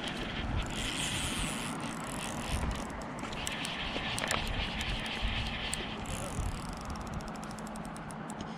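Fly reel's clicker ratcheting in two short runs, then clicking in quick strokes near the end, over the steady rush of a fast river and wind rumble on the microphone.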